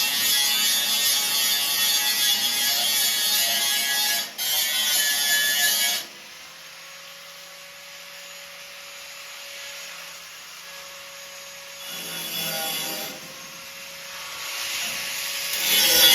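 A power grinder working on steel: a loud, harsh grinding over a steady motor whine, with a brief break a little after four seconds, that stops abruptly about six seconds in. A much quieter steady hum follows, and the grinding starts up again briefly around twelve seconds and near the end.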